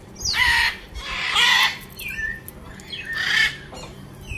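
A bird squawking: three loud, harsh calls about a second apart, with a short chirp between the second and third.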